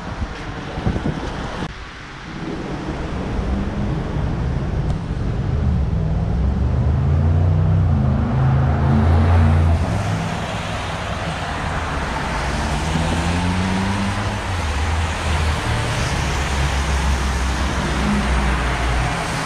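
City road traffic passing on a wet street: vehicle engines rumbling with a hiss of tyres, building to its loudest about halfway through.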